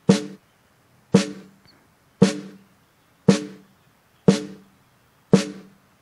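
Looped recording of a snare drum, hit about once a second, run through a Presonus ACP88 compressor and noise gate. Each hit is a sharp crack with a short pitched ring that the gate shuts almost immediately, giving a very tight snare sound that is almost sci-fi.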